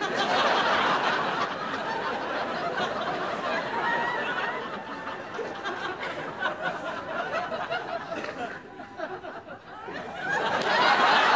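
Studio audience laughing. The laughter starts loud, eases off and dips near the end, then swells up again.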